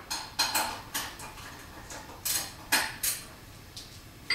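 Metal tools and parts clinking and clanking, about eight sharp knocks at irregular intervals, some of them ringing briefly.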